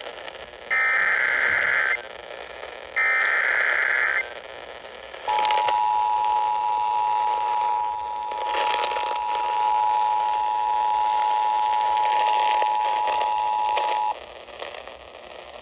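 Emergency Alert System tones received over the radio. Two short screeching bursts of SAME digital header data, each about a second long, are followed about five seconds in by the EAS two-tone attention signal, a steady dual tone held for about nine seconds. Static hiss and crackle run throughout.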